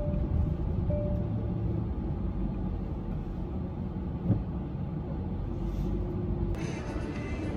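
Steady low rumble of a car's engine and tyre noise, heard from inside the cabin while driving.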